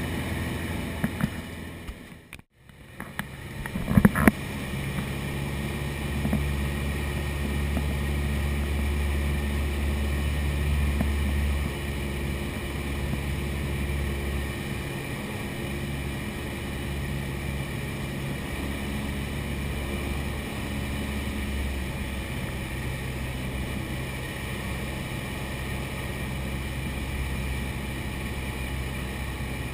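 A light single-engine piston airplane's engine and propeller drone steadily, heard inside the cabin. The sound drops out briefly about two seconds in, and a few sharp knocks come about four seconds in.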